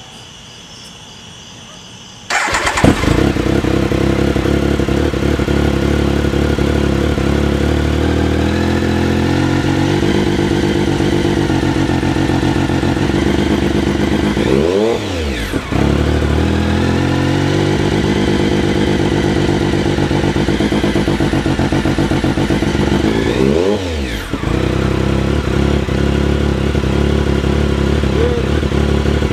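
2006 Triumph Speed Triple's 1050 cc three-cylinder engine, breathing through a MIVV GP aftermarket exhaust, fires up about two seconds in and idles, with two short throttle blips that rise and fall in pitch. The owner reports a misfire at light throttle between about 1500 and 3500 rpm.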